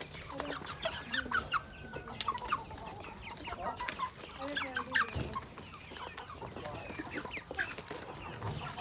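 Chickens calling: a dense run of short, high, overlapping peeps and chirps from chicks, mixed with lower clucks.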